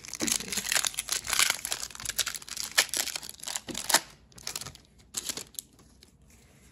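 Foil wrapper of a Pokémon TCG booster pack crinkling and being torn open, dense and crackly for about four seconds, then a few scattered crackles before it goes quiet.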